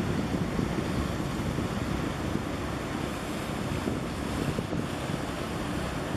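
Steady wind buffeting the camera's microphone, over the wash of choppy sea water.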